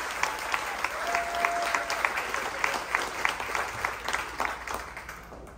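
Audience applauding, with single claps standing out, dying away near the end.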